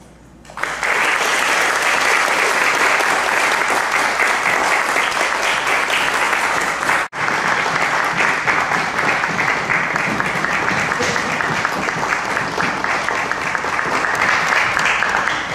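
Audience clapping, starting about half a second in and carrying on as dense, steady applause, with a momentary break about seven seconds in.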